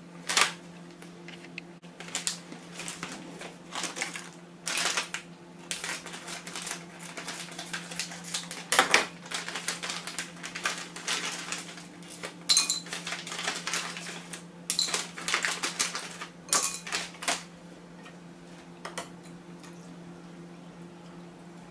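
Plastic packet crinkling and a run of light clicks and clatters as dried kombu knots are handled and dropped into a ceramic bowl. The handling stops about three-quarters of the way through, leaving a steady low hum.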